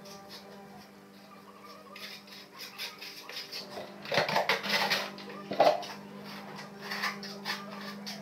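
A hand trowel scraping and tapping against ceramic tile, with short clinks, over a steady low hum. A louder stretch of scraping comes about four seconds in, followed by one sharp clack.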